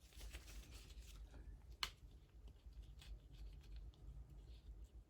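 Faint scraping and handling sounds of a stir stick working epoxy resin in a small silicone mold, with one sharp click about two seconds in.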